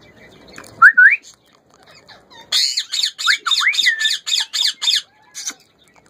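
Indian ringneck parakeet calling: a pair of short rising whistles about a second in, then a quick run of harsh squawks, about four a second, from about two and a half seconds in until about five seconds in.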